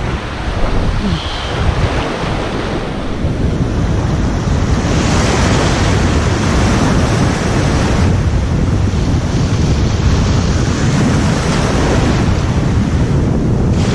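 Sea surf washing and breaking around a wading angler's legs in shallow water, surging every few seconds, with wind buffeting the microphone.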